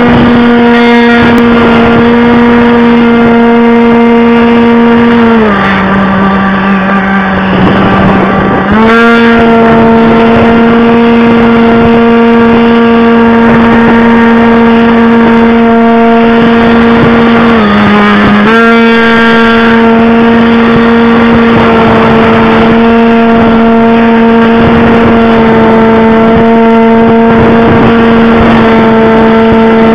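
Wild Hawk RC plane's motor and propeller running under power, recorded by a camera on the plane's nose: a loud, steady droning tone. The pitch drops as the throttle is eased back about five seconds in, climbs back up about three seconds later, and dips briefly once more near the middle.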